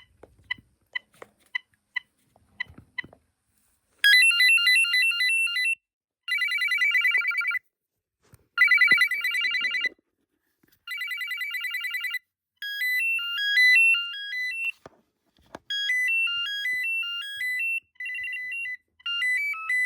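BT Everyday cordless phone base unit's electronic ringer playing its ringtones one after another, close to the microphone: first a fast warbling trill in four bursts of about a second and a half each, then several short beeping melodies of stepping tones.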